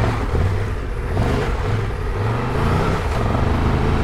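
Triumph Tiger 1200 Rally's three-cylinder engine running under throttle as the motorcycle is ridden off-road, its pitch rising twice as it accelerates, over a steady rushing noise.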